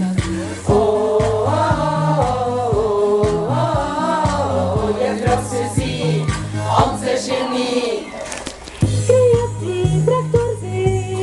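A group of women singing a song together into microphones over an amplified backing track with a steady beat and bass. The music dips briefly about eight seconds in, then carries on.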